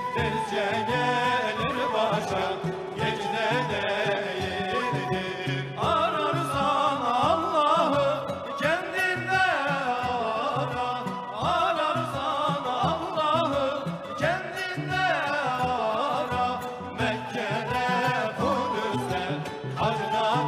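Turkish ilahi (Sufi hymn) performed live: large frame drums beat a steady rhythm under a wavering, ornamented sung melody, which grows fuller and louder about six seconds in.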